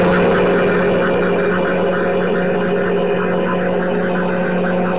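Vacuum cleaner running: a steady motor hum over a rush of air.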